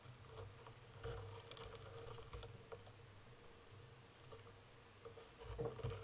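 Faint, scattered light taps and scuffs from a western gull's bill and feet on a seed-covered railing, over the steady low hum of a trail camera's recorder. The taps cluster about a second in and again near the end.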